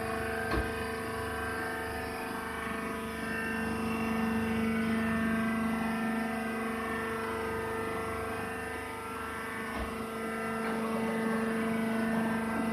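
Rice husk compactor baler machine running: a steady machine hum with several fixed tones, swelling and easing slightly in level, with a small knock about half a second in and another near the ten-second mark.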